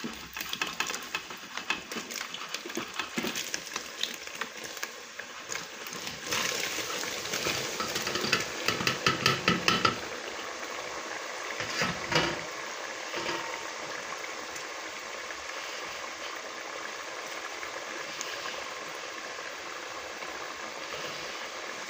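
Chin chin dough pieces tipped from a tray into hot vegetable oil, with clattering and scraping for the first ten seconds or so. After that the oil sizzles and bubbles steadily as the dough deep-fries, with one knock about twelve seconds in.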